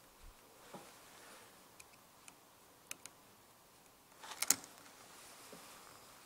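Faint, scattered small metallic clicks of steel tweezers against the battery locking plate and movement of an open Citizen quartz watch, as the plate is worked back into its slots, with a louder quick cluster of clicks about four and a half seconds in.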